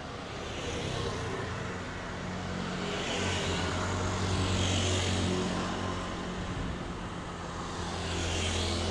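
Road traffic: motor vehicles passing close by, a low engine hum with tyre and wind rush that swells as each goes past, loudest about halfway through and again near the end.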